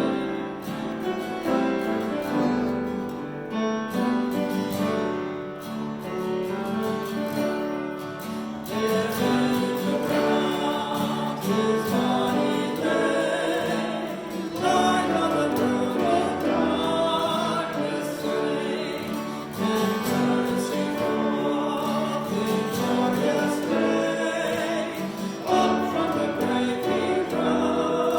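A hymn sung by voices with instrumental accompaniment.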